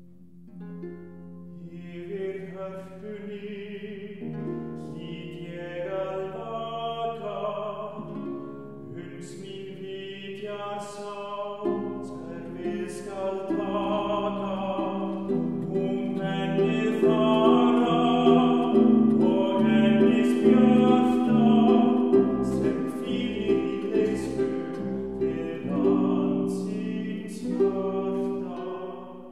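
Bass-baritone voice singing a slow art song in Icelandic, accompanied by plucked notes on a concert pedal harp. The singing swells to its loudest a little past halfway, then softens.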